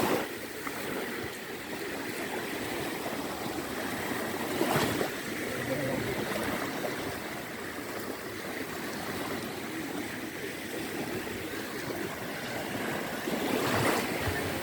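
Small waves lapping and washing onto a sandy shore of a calm sea, a steady wash that swells about five seconds in and again near the end.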